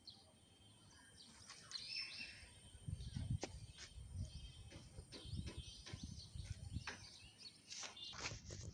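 Faint outdoor background noise with a few short bird chirps about two seconds in, and low rumbles and clicks from the phone being moved about.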